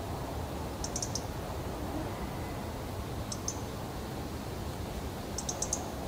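European robin giving sharp, high ticking calls in quick runs: about four ticks a second in, two near the middle, and about five near the end. This is the nervous alarm 'tic' that the recordist heard from a robin he thought had grown fledglings nearby.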